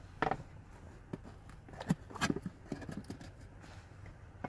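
Cardboard shipping box being opened by hand: scattered scrapes, taps and rustles as the flaps are pulled back and the inner box lid is lifted, with a sharper knock about two seconds in.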